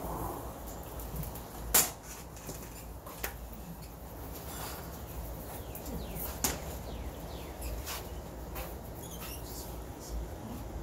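A few sharp clicks and knocks over a low steady rumble, the loudest about two seconds in.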